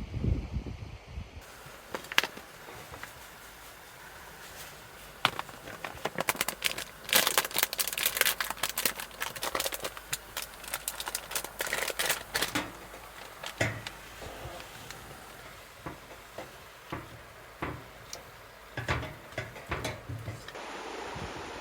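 Close handling noises: irregular clicks, crinkling and light knocks over a low hiss. They come thickest in a busy stretch in the middle.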